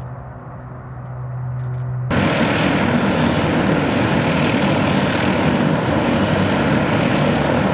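Tupolev Tu-95's four Kuznetsov NK-12 turboprops with contra-rotating propellers: first a steady low drone from the aircraft at a distance. About two seconds in, this changes abruptly to a much louder, dense propeller and engine roar as the bomber taxis close by.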